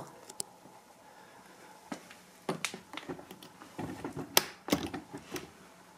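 The metal latch of a vintage hard-shell suitcase being unfastened and the lid handled: a string of small clicks and knocks starting about two seconds in, with one sharp click near the middle.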